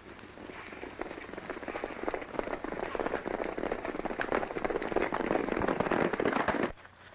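Horses galloping hard, a dense rattle of hoofbeats that grows louder and then breaks off sharply near the end.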